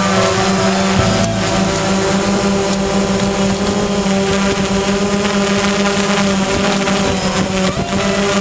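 DJI Phantom quadcopter's motors and propellers buzzing steadily at a hover, picked up by the camera on the drone itself, with small shifts in pitch about a second in and again later.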